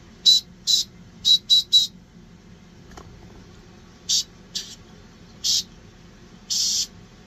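Small whistle blown in short, airy toots: five quick ones in the first two seconds, then three spaced toots and a longer blast near the end. The thin high tone is weak, the whistle 'doesn't work so good'.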